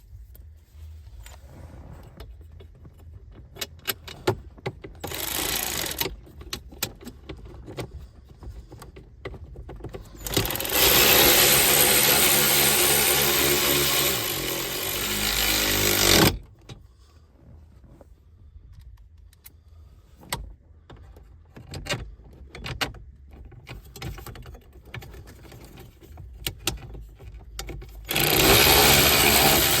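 Clicks and light metal knocks of parts and tools being handled, then a handheld power tool runs steadily for about six seconds and stops abruptly. After more clicking it starts again near the end.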